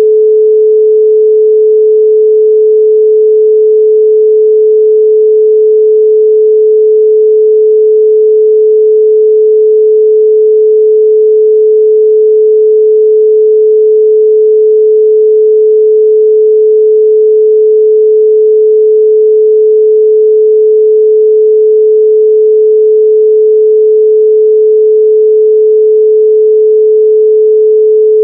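A 432 Hz pure sine tone, held steady and loud without any change in pitch or level.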